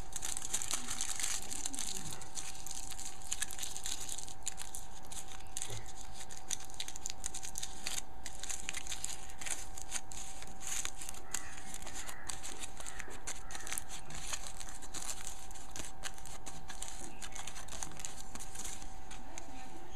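Thin aluminium foil crinkling and crackling as it is crumpled in the hands, with a short pause about eight seconds in. A steady background tone runs underneath.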